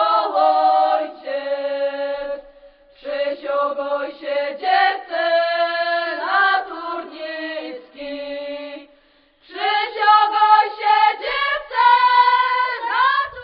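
Voices singing a song of drawn-out, held phrases, with a short break about nine seconds in.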